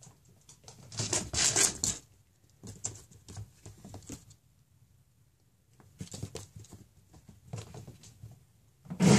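A cat's paws pattering and skittering on a hard floor in three quick runs of steps as it chases a laser dot, with a louder thump at the very end.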